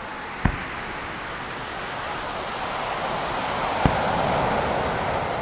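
Two sharp firework booms, a little over three seconds apart, the first the louder, over a swelling and fading wash of surf breaking on the beach.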